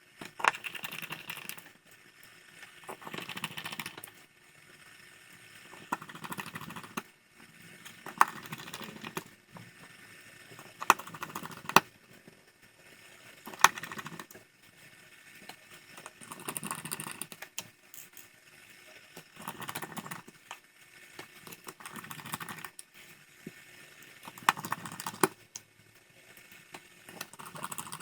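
Small screwdriver driving the screws into a smartphone's mid-frame one after another. A scratchy turning sound comes every two to three seconds, with sharp clicks in between.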